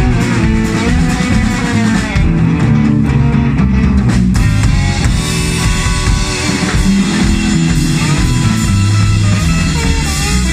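Live electric blues band playing: a Stratocaster-style electric guitar plays single-note lines with bent notes over bass guitar and a drum kit.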